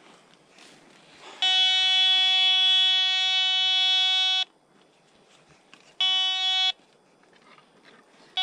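Metal detector's signal tone: a loud steady electronic beep lasting about three seconds, then a short beep about six seconds in and another starting at the very end, as the detector signals a target.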